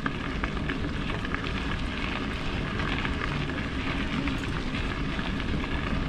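Bicycle rolling along the trail: a steady crackling hiss of the tyres with scattered small ticks.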